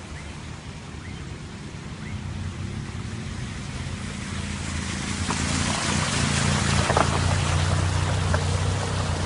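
Car engine running as a small hatchback drives slowly through a flooded street, getting louder as it comes up. From about halfway its tyres push through the water with a rushing splash that swells and is loudest a little before the end.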